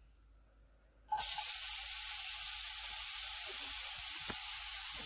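Chopped onion tipped into hot oil in a stainless steel frying pan, starting to sizzle suddenly about a second in and then frying with a steady hiss.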